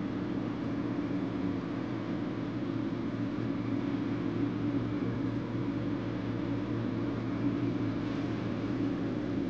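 A steady mechanical hum with a low drone and an even hiss over it, unchanging throughout: the running noise of a machine in the room.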